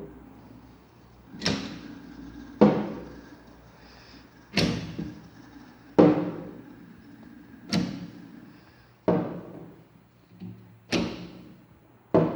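A series of sharp hits, about one every one to two seconds, each ringing briefly as it fades.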